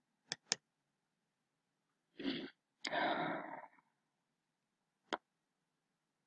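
Computer mouse clicks: a quick double click just after the start and a single click about five seconds in. Between them, a breath in and a longer breath out close to the microphone.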